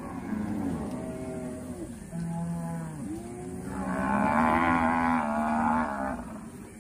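Cattle in a herd mooing, several calls overlapping one another, with one long, loud bellow from about four seconds in lasting about two seconds.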